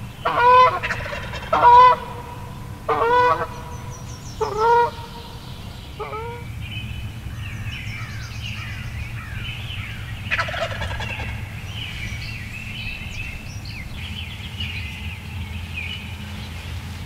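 Wild turkey gobbler gobbling four times in quick succession in the first five seconds, with a fainter fifth gobble about six seconds in. Softer, higher bird calls follow.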